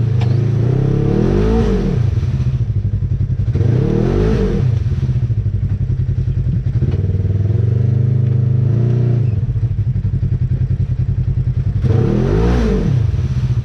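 Off-road vehicle engine running at a low steady drone, revved up and back down three times: about a second and a half in, around four seconds, and near the end.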